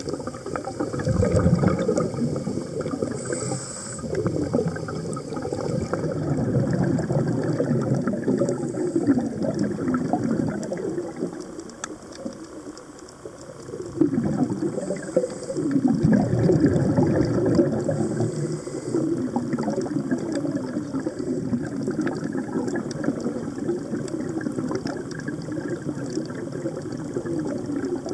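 A scuba diver's regulator exhaust, heard underwater: bubbling in long surges, with a quieter stretch about eleven to fourteen seconds in.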